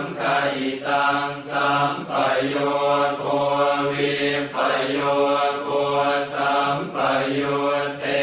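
Thai Buddhist funeral chant by monks, recited in Pali on a low, even, near-monotone pitch, in phrases broken by brief pauses about every second or so.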